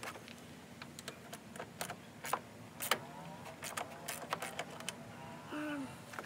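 Irregular sharp clicks and clinks of hand tools and metal hardware as a hood latch lock is fitted to a Jeep, with a brief pitched sound that drops in pitch about five and a half seconds in.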